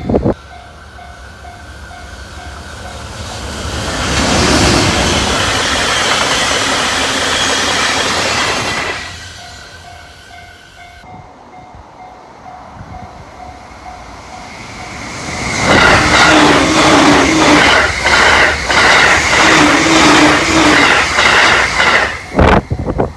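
Japanese level-crossing warning bell ringing with a steady, even ding, then a Joban Line train passing at high speed in a loud rush lasting about five seconds. The bell rings again, and a second train passes over the last seven seconds with a rapid run of wheel clacks over the rail joints.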